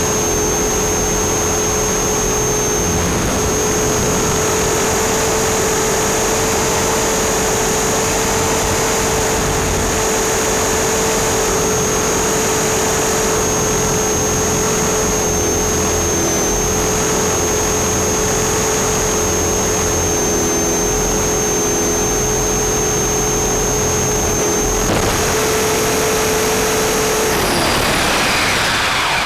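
Align T-Rex 450 electric RC helicopter heard from its own onboard camera: a steady high whine from the motor and rotor with a rushing noise underneath. Near the end the whine falls in pitch as the motor spools down.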